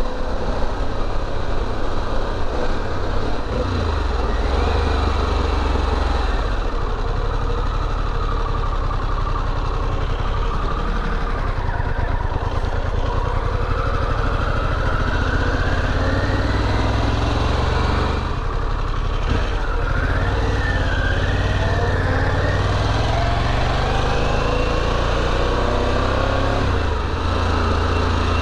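Motorcycle engine running at road speed, heard through a helmet-mounted mic with wind rush over it; the engine note steps up and down several times.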